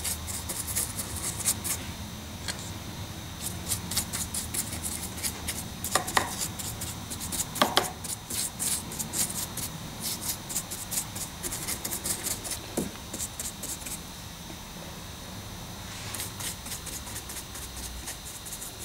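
Paintbrush scrubbing and dabbing over model rock castings: a quick run of short, scratchy strokes, with a couple of louder knocks around the middle and a brief pause later on.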